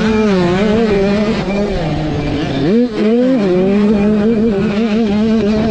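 KTM supermini two-stroke motocross engine held near wide-open throttle at a steady, high pitch, heard from the bike's onboard camera. About three seconds in the pitch dips briefly and swings back up as the throttle is chopped and reopened.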